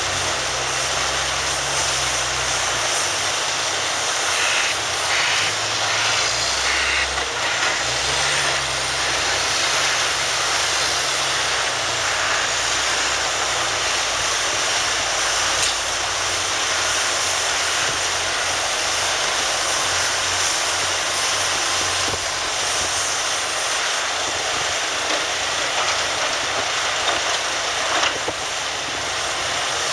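Diesel engines of a Cat 345D hydraulic excavator and a Cat 770 haul truck running steadily as the excavator digs and loads the truck. The low engine note rises and falls under hydraulic load in the first dozen seconds, and a short thump near the end comes as a bucketload drops into the truck's steel bed.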